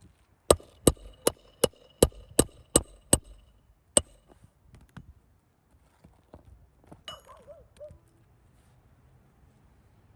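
Hammer driving a roofing nail: eight quick, ringing strikes at about three a second, then one more strike a second later.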